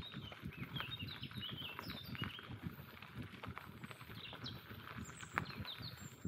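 Bicycle rolling along a forest track: a dense, uneven crunching and rattling from the tyres and bike, while small birds chirp repeatedly.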